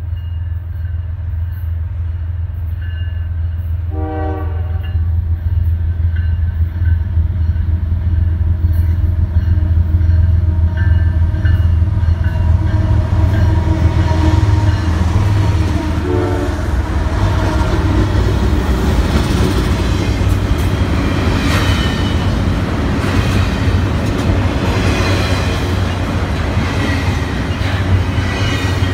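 Norfolk Southern double-stack intermodal freight train approaching and passing: a steady low diesel rumble from the locomotives, with a short horn blast a few seconds in and another about halfway through. As the locomotives go by it grows louder and gives way to the rattle and clickety-clack of the stack cars' wheels on the rails.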